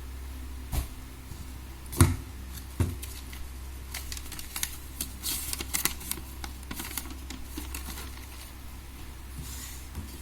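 Hands unboxing: a few sharp knocks, the loudest about two seconds in, then a run of light clicks and rustles as the packaging and the items inside are handled.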